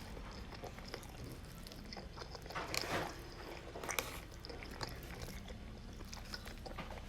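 A person chewing and eating food, with small scattered clicks and smacking sounds, a little louder around three and four seconds in.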